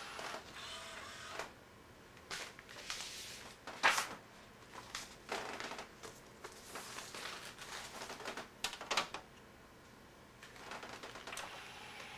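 Irregular sharp clicks and plastic clatter at the open disc tray of a Pioneer CLD-3070 LaserDisc player as a LaserDisc is set onto it. The loudest knock comes about four seconds in, with a double click near nine seconds.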